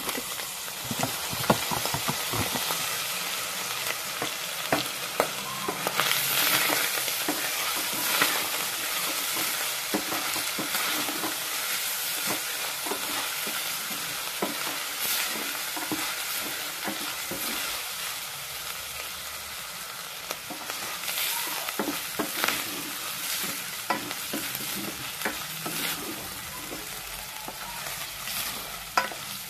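Chopped ginger and diced meat sizzling as they sauté in a stainless steel pot, stirred with a wooden spoon that scrapes and clicks against the pot. The sizzle swells for a couple of seconds about six seconds in.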